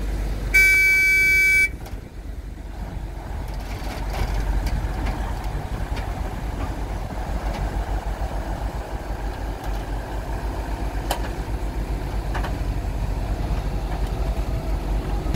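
A vehicle horn sounds once for about a second near the start, over the steady low rumble of heavy diesel engines from the dump truck and excavator, which grows slightly about four seconds in.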